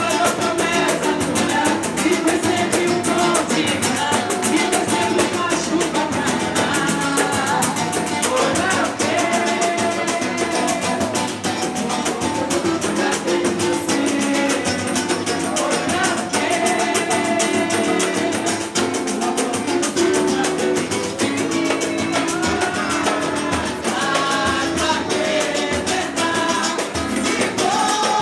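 Samba-pagode music: a singing voice over a dense, steady percussion beat with plucked strings.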